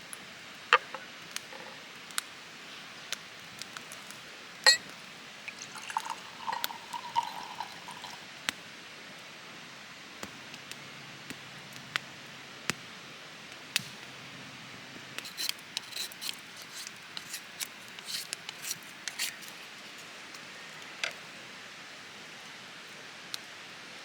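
Tableware and utensils clicking and clinking at a meal, scattered sharp clicks with a brief ringing clink about six seconds in and a busier patch of clicks around the middle, over a steady background hiss.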